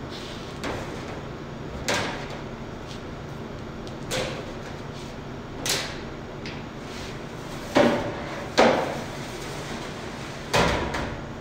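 Scattered knocks and clatter of kitchen containers and utensils being picked up and set down on a stainless-steel worktable and metal tray, about seven in all, the two loudest a little past the middle ringing briefly.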